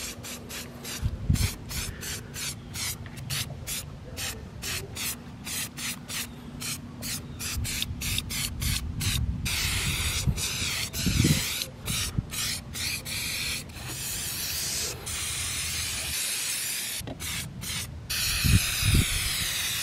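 Aerosol can of Slick Products shine-and-protectant spray being sprayed. For about the first half it goes in rapid short puffs of hiss, about three a second, then in longer steady sprays, with a few low thuds between.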